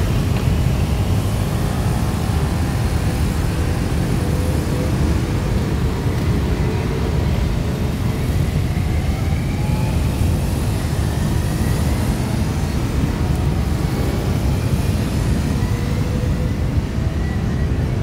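A procession of motorcycles pulling out one after another and riding past: a steady low engine rumble, with engine notes rising in pitch as bikes accelerate away.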